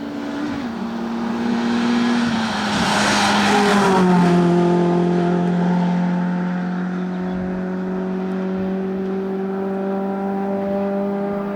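A hillclimb race car's engine passing close at full speed. It is loudest about three to four seconds in, where the note drops in pitch as it goes by, then it holds a steady note while moving away.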